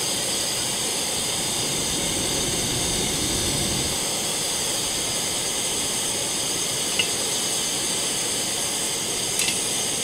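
Primus gas stove burner hissing steadily, turned up to full, with a Kelly Kettle's wood fire burning alongside. Two small clicks near the end.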